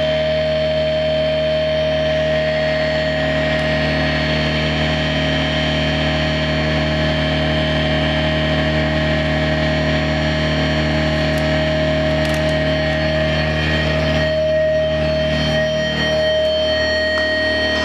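Electric guitar feedback through amplifiers, mixed into a single drone: several steady held tones over a wash of noise. The blend of tones shifts about fourteen seconds in.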